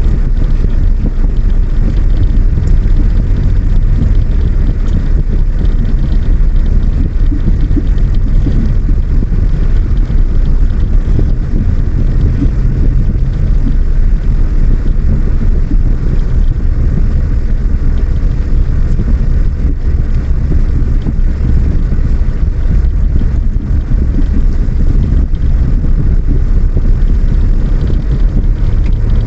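Vehicle engine running steadily with continuous low road rumble, heard from on board while travelling.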